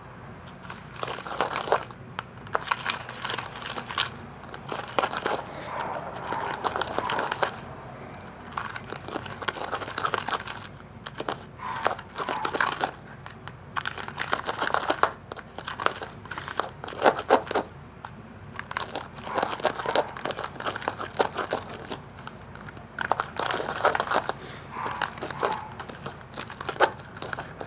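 Hands kneading and squishing a sticky toothpaste-and-salt slime, in irregular bouts of crackling and clicking as the tacky mixture sticks to and peels off the fingers.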